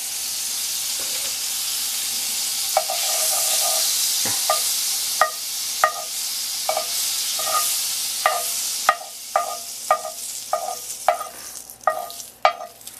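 Butter sizzling as it melts in a hot cast-iron skillet, while a metal spatula pushes it around, scraping and tapping the pan in a steady run of short ringing strokes, about one and a half a second, from about three seconds in. The sizzle eases in the last few seconds.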